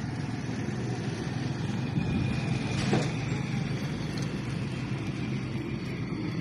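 Steady low rumble of outdoor background noise, with one brief sharp click about three seconds in.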